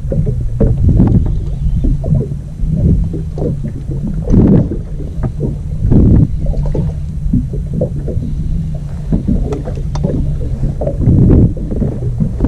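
Small boat's outboard motor idling with a steady low hum, with gusts of wind buffeting the microphone and scattered small knocks.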